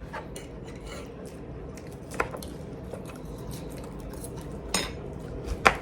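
Cutlery and dishes clinking at a meal table: a few sharp clicks and clinks, the clearest about two seconds in, near five seconds and just before the end, over a low steady background hum.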